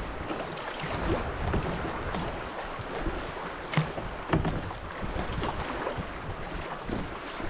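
Fast river current rushing past a canoe's hull as it runs downstream, with wind buffeting the microphone. A couple of sharp knocks come about four seconds in.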